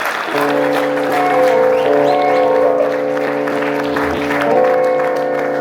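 Live blues band holding sustained chords, with audience applause over the music.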